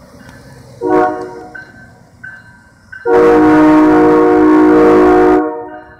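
MBTA commuter train's air horn as the train departs, sounding a short blast about a second in and then a long blast of over two seconds, a chord of several steady tones. This is the horn warning for the grade crossing.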